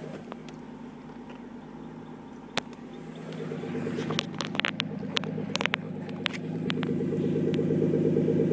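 Nissan RB25 straight-six idling steadily through an Apexi exhaust, growing louder from about three seconds in as the microphone nears the exhaust tip. A few sharp clicks are scattered through the middle.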